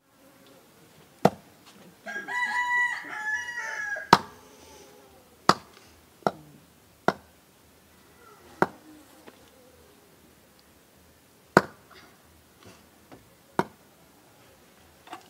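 A knife chopping pork on a wooden chopping block: sharp single chops at uneven intervals, about eight in all. A rooster crows once for about two seconds, a couple of seconds in.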